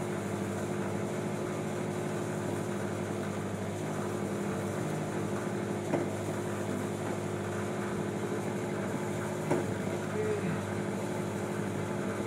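An engine on the fishing boat running steadily at one constant pitch, a continuous drone, with two brief knocks about six and nine and a half seconds in.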